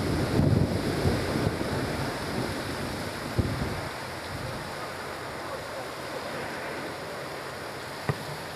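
Wind buffeting an outdoor microphone, with low rumbling gusts that ease off about four seconds in, over a steady hiss. Two short thumps, one about three and a half seconds in and one near the end.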